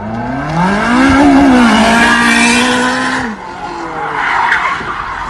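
Supercar engine revving hard under full acceleration. Its pitch climbs over about the first second, holds high, then drops away a little after three seconds in as the throttle comes off, with tyre noise and some tyre squeal near the end as the car slides.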